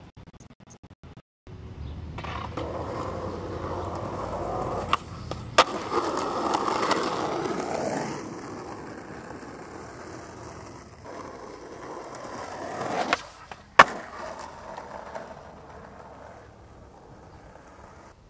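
Skateboard wheels rolling over rough asphalt, with two sharp clacks of the board about five seconds in. The rolling swells again and ends in one loud clack about two-thirds of the way through, then dies down.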